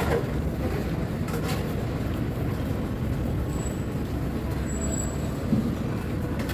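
Steady low rumble of road traffic, with a few faint clicks and two brief high squeaks near the middle.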